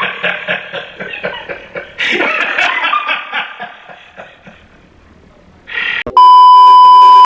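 Rhythmic soundtrack music that fades away, then a sudden loud steady electronic beep held for about a second at the end.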